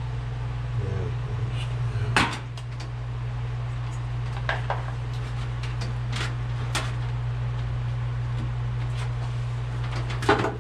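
Scattered sharp metallic clicks and clinks of hand tools and small parts being handled during wiring work, a few seconds apart, over a steady low hum.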